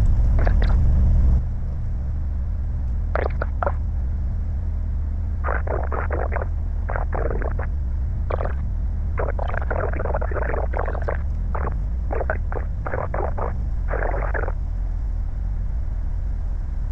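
Piper PA-28's piston engine idling, a steady low drone heard inside the cabin, dropping in level about a second and a half in. Short muffled, crackly bursts come and go over it.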